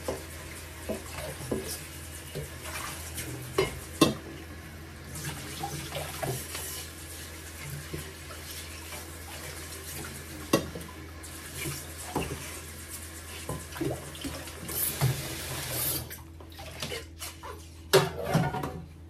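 Kitchen tap running into the sink while dishes are washed by hand, with glass dishes clinking and knocking. The water shuts off near the end, and a glass dish clatters as it is set in the dish rack.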